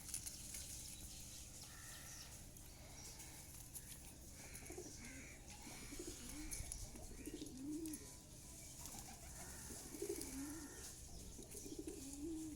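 Feral pigeons cooing, a series of low warbling coos that rise and fall in pitch, starting about four seconds in, over a steady background hiss with faint scattered clicks.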